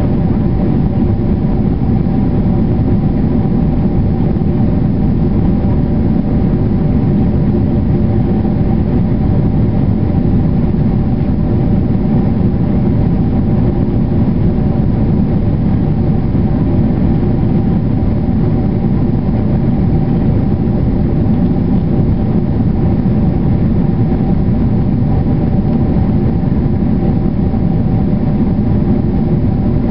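Boeing 767 cabin noise in flight: a steady low rush of jet engines and airflow inside the cabin, with a few constant engine tones above it.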